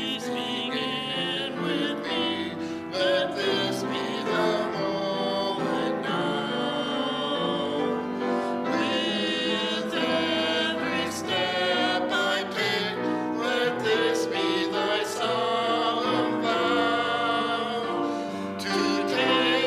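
Sacred song sung with vibrato over sustained instrumental accompaniment, performed as special music in a church service.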